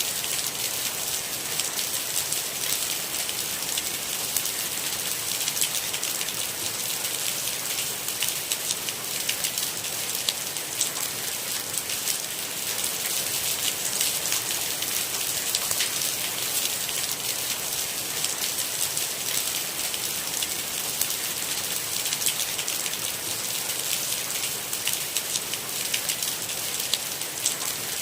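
Steady rain falling: a dense, even hiss with constant fine ticks of individual drops, unchanging throughout.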